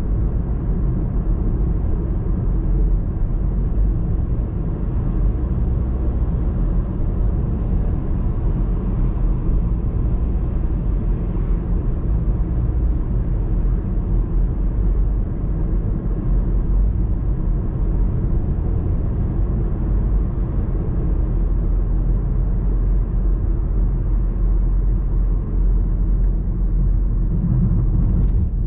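Steady low rumble of a car driving along city streets, with engine and road noise holding at an even level.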